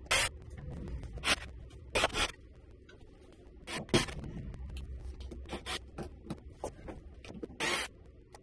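A series of short, sharp scrapes and clacks, about a dozen at irregular intervals, from hardware being handled at a shower-curtain rod and its wall bracket.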